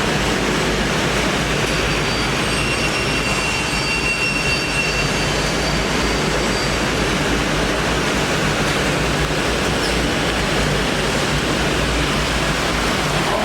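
HOMAG five-axis CNC woodworking machining centre running: a steady, loud, even machine noise, with a faint high whine between about two and five seconds in.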